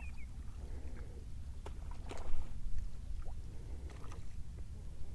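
Water lapping and slapping against the hull of a drifting fishing boat over a steady low rumble, with a few sharp small knocks or splashes, the loudest about two seconds in.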